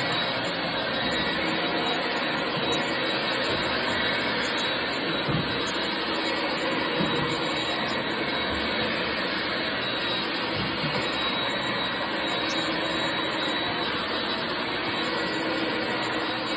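Heavy-duty wet/dry vacuum motor running steadily.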